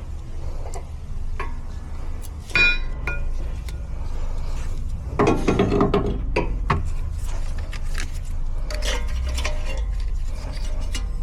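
Rear brakes squealing in several short pitched bursts, the loudest about halfway through, over a steady low rumble.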